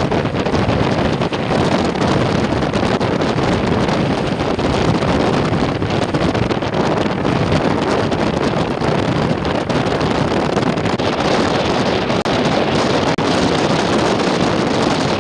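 Strong wind buffeting the microphone: a loud, steady rushing with no let-up.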